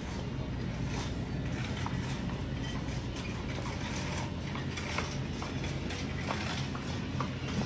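Grocery store background: a steady low hum with scattered light clicks and rattles.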